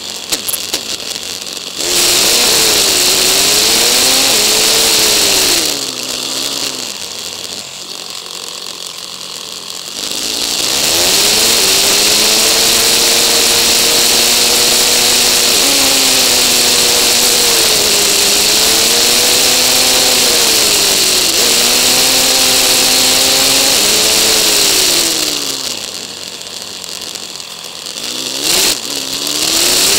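Motorcycle engine and rushing wind recorded on the moving bike, sped up fourfold so the engine pitch climbs and falls every couple of seconds with a high, chainsaw-like tone. Twice the wind hiss drops away and the engine quietens for a few seconds as the bike slows in traffic.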